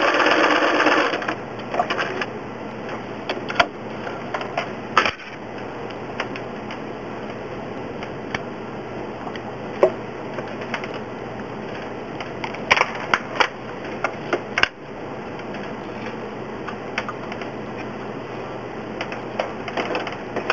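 Sewing machine stitching with a darning foot, stopping about a second in. After that there is only a low hiss with scattered clicks and taps.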